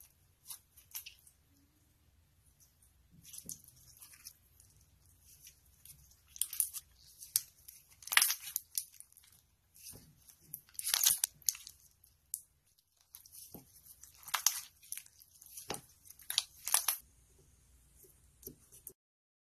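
Hands squeezing and pressing slime, making irregular crackling and popping in clusters with short pauses between.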